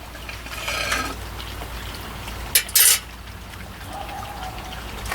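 Small tools handling a circuit board at a workbench: a brief soft hiss about half a second in, then two sharp clicks near the middle, over a steady low hum.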